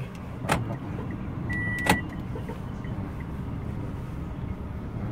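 Steady low hum of a car's cabin, with a sharp clack about half a second in, then a short high beep ending in another sharp click about two seconds in.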